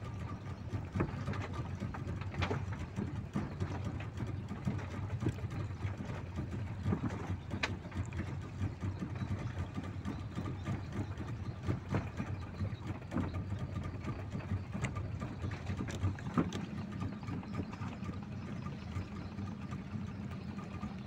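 Boat engine running steadily at idle, a low hum, with scattered short clicks and knocks.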